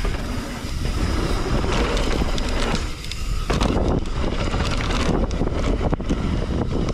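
A mountain bike riding fast down a dirt jump trail: wind rushing over the microphone with tyre roar and frequent rattles and knocks from the bike. The noise drops briefly about three seconds in.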